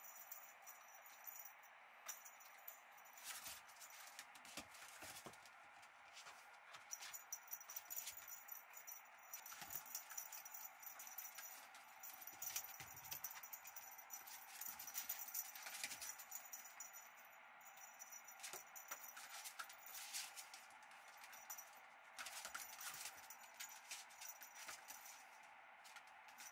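Faint, irregular light taps and rattles as a puppy scampers about on a mat playing with a feather-wand toy and small balls.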